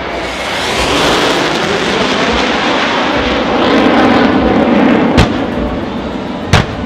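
Jet noise from fighter aircraft making a low pass in a simulated air strike, swelling louder over about five seconds. Then two sharp bangs from the ground pyrotechnic explosions, about a second and a half apart.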